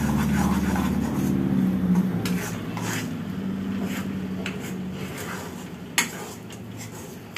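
A steel spatula stirs and scrapes thick, frothing Mysore pak batter around a steel kadhai, clinking now and then against the metal, with one sharp clink about six seconds in. The mixture is being kept moving as it turns porous so that it does not stick. A low hum fades out over the first two seconds.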